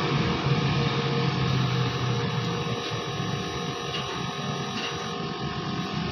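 Small 660cc engine idling steadily with an even hum, which eases slightly about halfway through.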